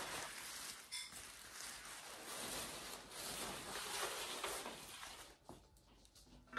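Tissue wrapping paper of a rose bouquet rustling and crinkling as it is pulled off the stems, fading down near the end.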